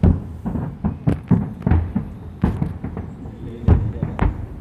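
Fireworks going off: a quick run of booming bursts and sharper cracks, two or three a second.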